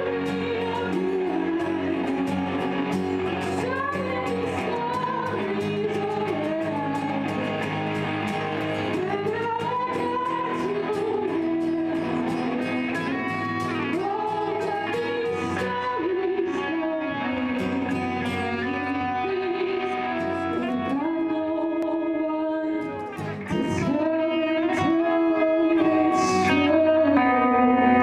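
A song: a voice singing a melody over guitar accompaniment, briefly dropping away about three quarters of the way through and coming back a little louder.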